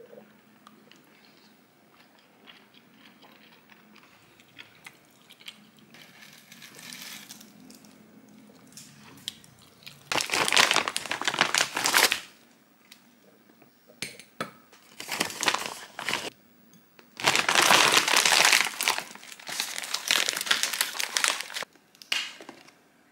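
Plastic packaging of frozen corn dogs being handled and opened, crinkling in three loud spells from about ten seconds in, after fainter rustling at the start.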